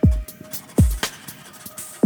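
Electronic music with a beat: deep, booming kick drums that drop in pitch, one at the start and one about a second in, with a sharp snare-like hit between.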